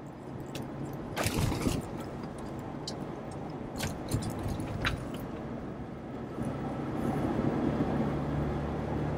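Truck driving slowly, heard from inside the cab: a steady engine and road hum that grows louder in the second half, with a cluster of knocks about a second in and a few sharp clicks after.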